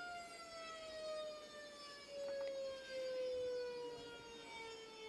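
Recording of an outdoor warning siren played with no rotation: one steady wailing tone with strong overtones that slowly winds down in pitch.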